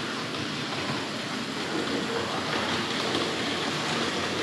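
Hornby R.068 Class 25 model diesel locomotive running with a rake of goods wagons on 00 gauge track: a steady whirring rattle of the electric motor and the wheels on the rails, growing a little louder as it comes closer.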